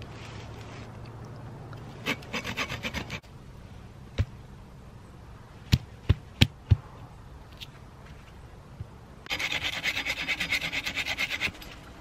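Friction fire drill: a wooden spindle rubbing against a wooden hearth board in quick rhythmic strokes. There is a short run of strokes about two seconds in and a longer, louder run near the end, with a few sharp knocks between them.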